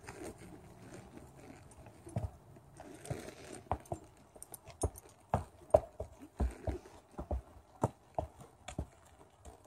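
A horse's hooves knocking on the wooden planks of a low suspension bridge as it walks across, in uneven strikes that begin about two seconds in.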